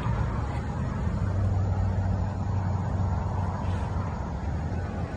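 Diesel locomotive engine running steadily with a low hum.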